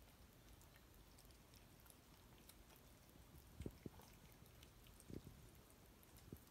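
Faint crunching of a cat chewing dry kibble, with a few soft low thumps about halfway through and near the end.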